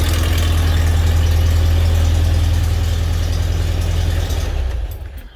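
Air-cooled Volkswagen flat-four engine idling steadily and smoothly, freshly tuned with its valves set to 0.006 in and a new ignition coil; it is switched off near the end and dies away.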